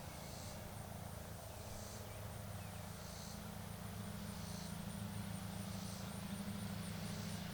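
Summer field insects: a short high buzz repeating about every one and a half seconds over a faint, steady, high pulsing trill, with a steady low hum beneath.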